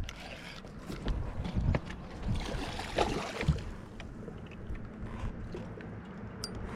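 Scattered light knocks and rustling handling noise over a low steady background.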